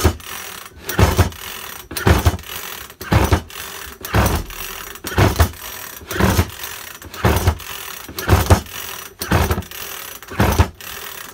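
Makita top handle chainsaw being pull-started: about eleven rasping pulls of the recoil starter, roughly one a second, cranking the two-stroke engine, which does not fire at all, not even a pop. The ignition is giving no spark.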